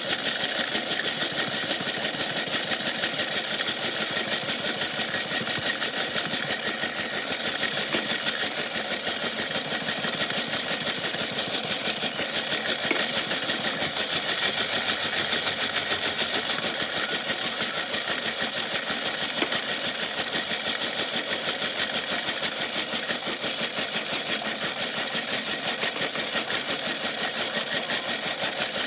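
Washing machine running with a big rock inside: a steady, fast, unbroken rattling clatter that does not let up.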